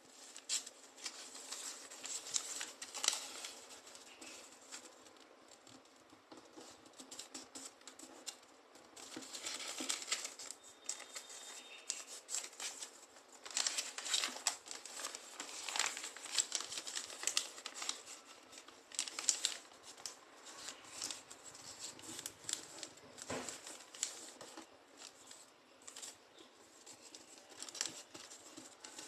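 A sheet of paper rustling and crinkling in irregular bursts as it is folded by hand and its creases pressed flat.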